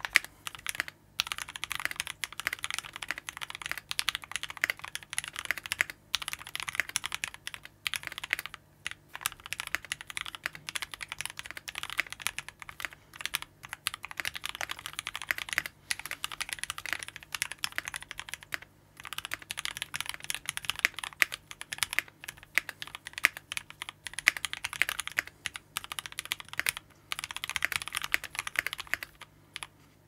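Continuous fast typing on a mechanical keyboard with a few short pauses: a TOFU65 with brass plate and weight, plate and case foam, lubed and filmed Gateron Black Ink linear switches, and GMK Mecha-01 doubleshot ABS keycaps.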